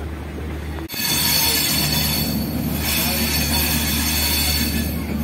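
Passenger train running, heard from inside the coach at an open window: rumble of the wheels on the rails with a thin, steady high squeal. It gets loud about a second in.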